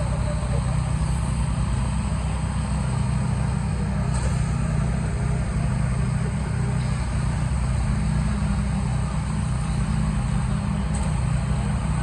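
Engine of the concrete pumping machinery running steadily, a low drone with no break.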